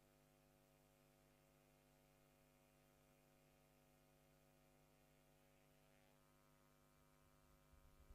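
Near silence: a faint steady electrical hum, with music starting to fade in near the end.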